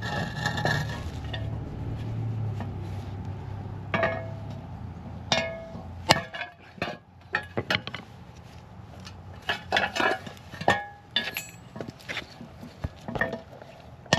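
Hammer blows on steel, driving a pressed-in front wheel bearing into the steering knuckle: about a dozen sharp, ringing metallic strikes at uneven intervals, several in quick succession around the middle.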